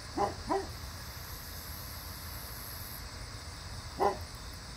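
A dog barking: two quick barks right at the start and one more near the end, over a steady low background rumble.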